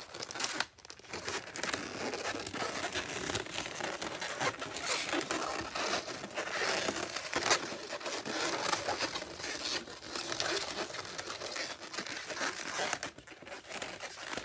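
Inflated latex modelling balloons being twisted and worked by hand into a fin: a dense, crackly run of latex rubbing and squeaking on latex and on the hands.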